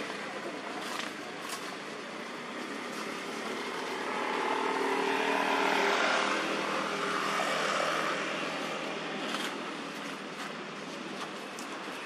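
A motor vehicle passing on the road, its engine and tyre noise building about four seconds in, loudest around the middle, then fading away, over a steady background hum, with a few faint clicks.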